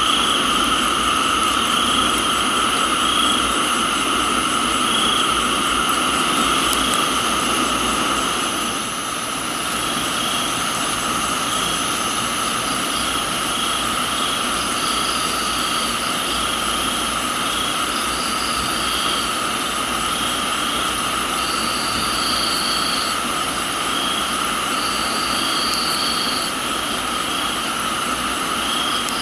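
Crickets and other insects chirring in a steady chorus at several pitches, one of them pulsing in a regular beat, over a steady hiss of rain. The lower rush of the rain eases about nine seconds in. In the second half a higher buzzing call comes in four times for about a second each.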